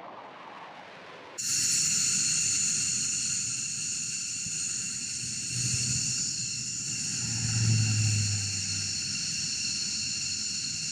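Jet noise from a Eurofighter Typhoon taking off, cut off abruptly after about a second. It gives way to a four-engine C-130-type turboprop flying low over the runway: a steady high engine whine over a broad rumble, with a low propeller drone swelling about two-thirds of the way in.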